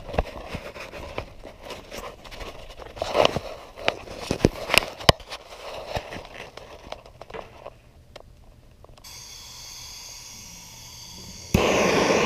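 Irregular clicks and knocks as the camera and torch are handled, then a fainter steady hiss. About a second before the end, a handheld MAP gas torch flame comes on with a sudden loud, steady rushing noise.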